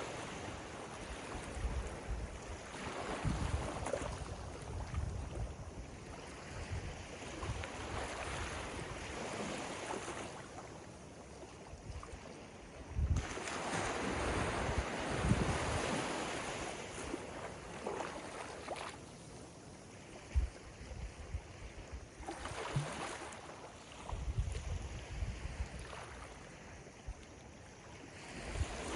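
Ocean waves breaking and washing up a beach, swelling and fading every few seconds, with the loudest surge a little before halfway. Wind buffets the microphone throughout.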